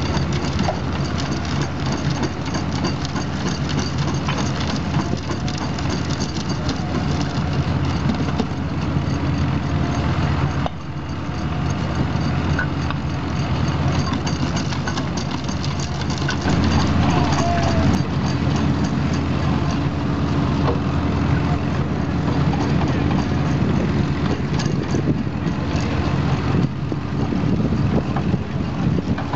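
Vintage open-crank stationary engines running steadily, with the knocking and clatter of an engine-driven stone crusher breaking rubble.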